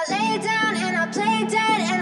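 Background pop music: a bending melodic line over a steady low note.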